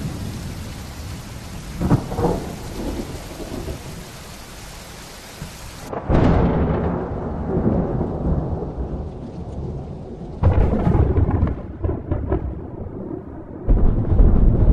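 Thunder with rain: a rumble fading away and a sharp crack about two seconds in. Then three loud peals, about six seconds in, about ten seconds in and the loudest near the end, each rolling off into a low rumble.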